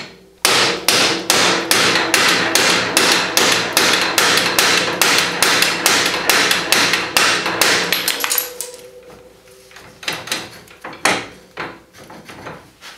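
Hammer blows driving a stuck bolt out of a side-by-side's upper front spindle: a fast, steady run of about four strikes a second for roughly seven seconds, then a few scattered strikes near the end.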